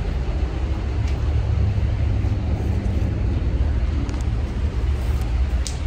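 Truck engine idling: a steady low rumble, with a few light clicks and knocks over it.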